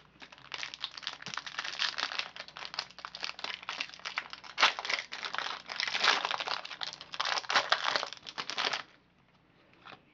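Crinkling and rustling of a 2005 Bowman Chrome card-pack wrapper being handled and opened. It comes in dense bursts and stops abruptly about a second before the end.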